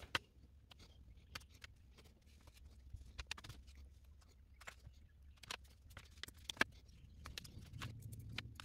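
Small metal spring clips clicking and snapping as they are opened and clamped onto a piece of window screen, in irregular light clicks with a few sharper snaps, along with the soft rustle of the mesh being handled.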